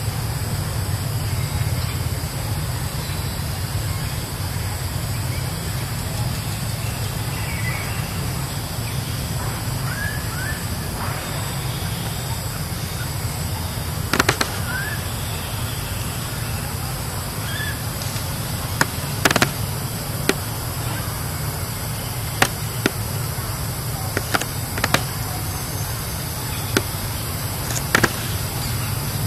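Outdoor ambience: a steady low rumble, a few short high chirps in the first half, and scattered sharp clicks or snaps, about ten of them, mostly in the second half.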